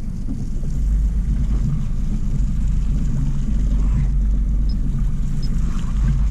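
Steady low rumble aboard a small open fishing boat at sea, wind on the microphone together with boat noise. It grows louder about a second in and then holds, with a few faint short high pips in the second half.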